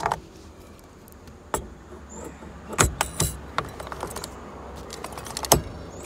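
A handful of sharp clicks and knocks with light rattling as hands grip and turn a newly fitted aftermarket steering wheel, the loudest a little before the middle and near the end.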